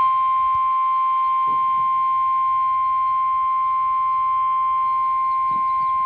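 NOAA Weather Radio's 1050 Hz warning alarm tone: one steady, piercing beep held at constant pitch and level. It signals that a weather warning is about to be broadcast.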